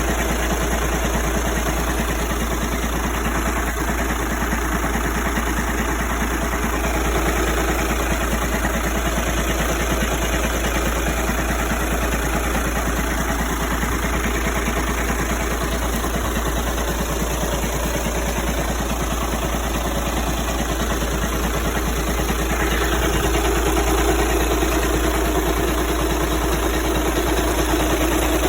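Turbo-diesel TDI engine idling with a steady, rapid clatter. This is the engine noise the owner reports as a fault.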